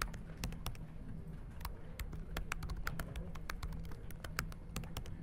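Typing on a thin laptop keyboard: quick, irregular key clicks, several a second, over a low steady hum.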